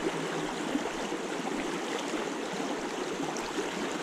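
Fast, shallow river current rushing steadily over a rocky riffle.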